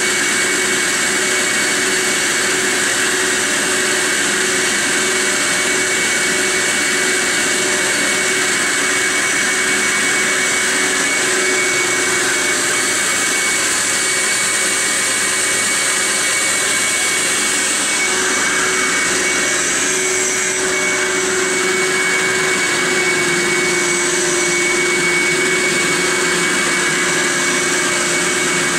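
BlackBoxVac Hurricane vacuum hold-down pump running steadily under load, its vacuum motors giving a loud rushing noise with a steady high whine and a lower hum.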